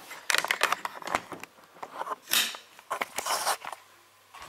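Plastic packaging being handled: a run of clicks and taps, with two longer rustles about two and three seconds in.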